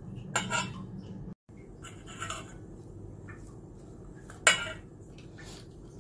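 Metal spoon scraping and clinking against a stainless steel bowl while mixing chopped onions, peas and spices with small raw fish. There are a few separate strokes, the loudest about four and a half seconds in, over a steady low hum.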